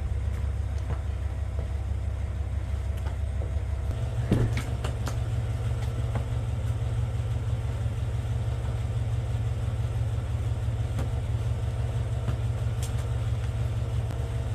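Steady low rumble of a car on the move, as heard inside the cabin, with a brief knock about four seconds in.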